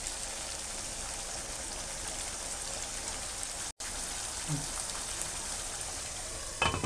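Boiled chickpeas frying with spices in oil and water in a non-stick pan: a steady sizzle as the water cooks off, cutting out briefly just before halfway. Near the end, a few sharp knocks as a glass lid is set on the pan.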